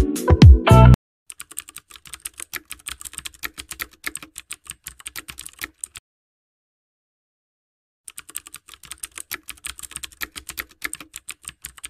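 Rapid keyboard typing clicks in two runs of about four seconds each, with a pause of about two seconds between them. Loud music cuts off suddenly about a second in.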